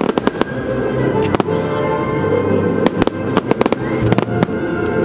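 Aerial fireworks bursting in a display: many sharp bangs and cracks, some in quick clusters of several, over steady music.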